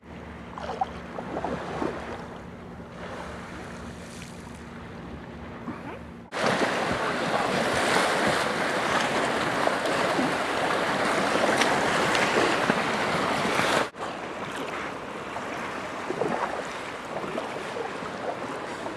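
Wind buffeting the microphone over choppy sea water lapping and splashing around a kayak. There is a faint steady low hum in the first six seconds. The sound grows louder at about six seconds in and drops abruptly at about fourteen seconds, where the clips change.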